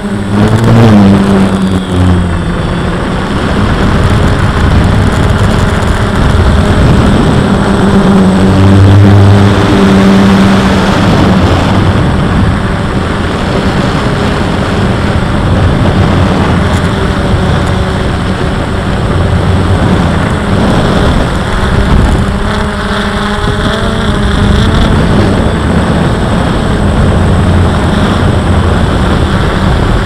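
DJI Phantom quadcopter's four motors and propellers buzzing in flight, heard from the camera it carries; the pitch shifts up and down now and then as the motors adjust, with wind noise on the microphone.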